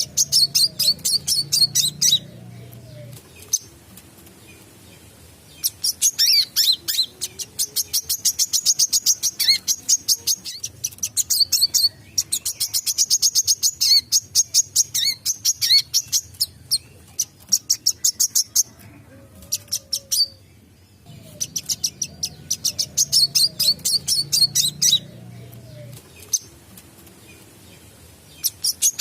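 Wiceh sunbird singing in bouts of rapid, high, clicking chirps, several bursts a few seconds long with short pauses between.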